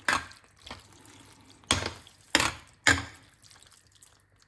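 A utensil knocking and scraping against a pan while spaghetti is tossed through a wet sauce, five sharp hits in about three seconds, each fading quickly.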